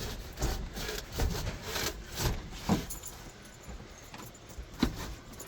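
Old Dometic RV refrigerator being worked loose in its wooden cabinet: a run of knocks and scrapes for the first few seconds, then one sharp knock near the end.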